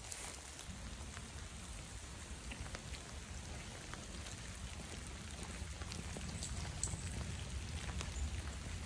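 Light rain falling, with scattered drop ticks over an even patter and a low rumble on the microphone.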